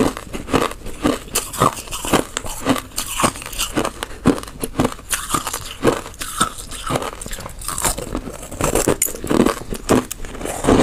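Crushed ice being bitten and chewed close to a clip-on microphone: a quick, irregular run of sharp, crisp crunches.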